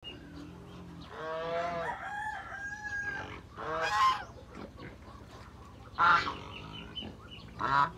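Domestic geese honking again and again: several loud calls, with quieter, higher calls between them.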